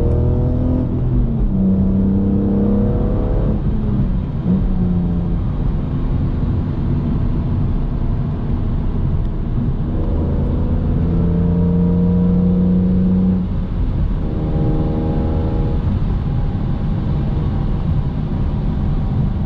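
BMW E46 M3's S54 straight-six, fitted with an Eventuri intake and a Status Gruppe muffler, running at highway speed as heard from inside the cabin, with a steady road rumble underneath. Its engine and intake note rises in pitch a couple of times as the car accelerates.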